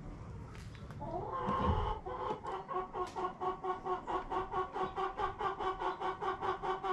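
Chicken clucking in a fast, even run of about five or six clucks a second, starting about a second in.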